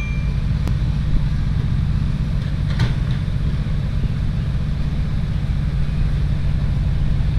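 Heavy diesel engines of a six-wheel dump truck and a Komatsu excavator running steadily, a low continuous rumble. Two light knocks come at about a second in and about three seconds in.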